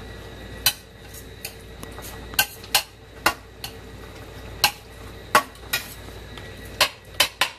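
Metal spatula clinking and scraping against a stainless skillet while stirring meat: irregular sharp clinks, a dozen or so, over a low steady background.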